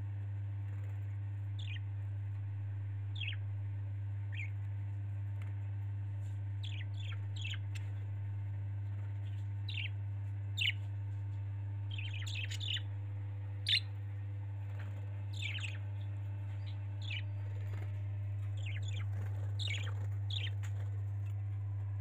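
Budgerigars chirping in short, sharp, downward-falling calls, sparse at first and coming thicker in the second half, over a steady low hum.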